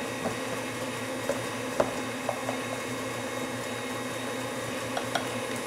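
Steady quiet room hum with a few faint, light clicks and taps as small kitchen containers and a measuring spoon are handled to measure out baking soda.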